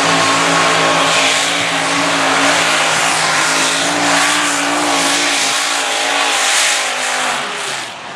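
Modified pulling tractor's several supercharged engines running flat out under load as it drags the weight sled. Near the end the pitch falls and the sound drops away as the engines are throttled back at the end of the pull.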